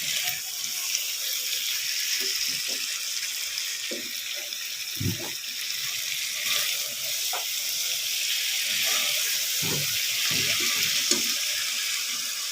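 Kitchen sounds during cooking: a steady watery hiss with a few soft low knocks scattered through it.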